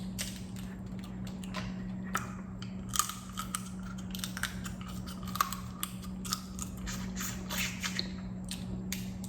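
Close-miked eating: chewing and crunching with many short sharp clicks, over a steady low hum.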